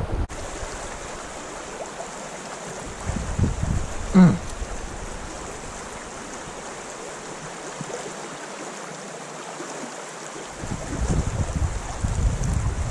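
Creek water running steadily, with gusts of wind rumbling on the microphone a few seconds in and again from about ten seconds on. A brief pitched sound about four seconds in is the loudest moment.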